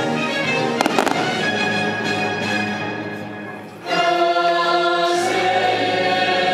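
Fireworks show soundtrack: orchestral music with a choir singing, with a few sharp firework bangs about a second in. The music fades briefly, then the choir comes back in loudly about four seconds in.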